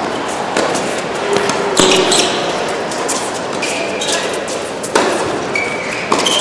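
Tennis ball being struck by rackets and bouncing on a hard court in a doubles rally, several sharp hits about a second apart echoing in a large hall, with short high squeaks of players' shoes on the court.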